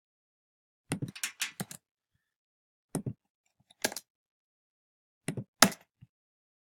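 Computer keyboard keystrokes and clicks: a quick run of about six clicks about a second in, then single and paired clicks every second or so.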